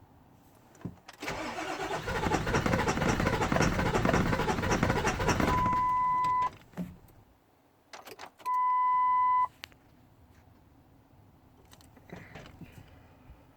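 Ford 7.3-litre V8 diesel being cranked by the starter for about four seconds without starting, the sign of its no-start problem. A steady electronic beep follows briefly, then sounds once more for about a second.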